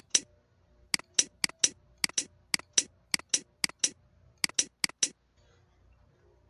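Computer mouse clicking in a rapid run of sharp clicks, mostly in close press-and-release pairs, stopping about five seconds in.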